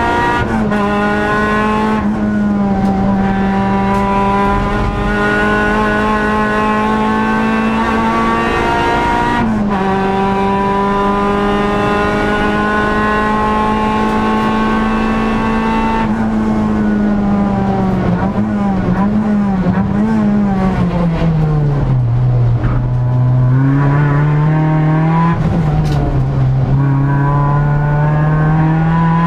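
Honda Civic EG race car's four-cylinder engine under hard acceleration, heard from inside the stripped cabin. Its pitch climbs and drops sharply at upshifts about half a second in and near ten seconds, then holds steady. It falls with several quick dips and rises on downshifts under braking, and climbs again from a low point with another upshift near twenty-six seconds.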